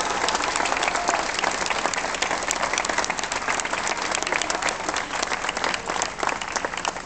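Audience applauding, dense crowd clapping that thins a little toward the end, with a last held sung note dying away about a second in.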